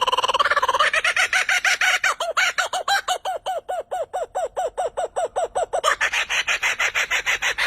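A bird calling: a fast trill that breaks about a second in into a long, even run of repeated notes rising at the end, about four a second.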